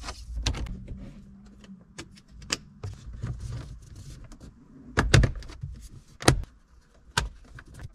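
Plastic shifter-surround trim panel on a Honda Civic Si EP3 being pressed back into the dash by hand, its clips snapping home with three sharp clicks in the second half. Lighter clicks and taps come before that as the parts around the shifter are handled.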